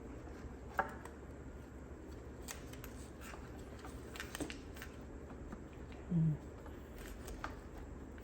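Scattered light clicks and taps of wiring-harness clips and engine parts being handled and pressed into place, with one short, low thud-like sound about six seconds in, over a steady low hum.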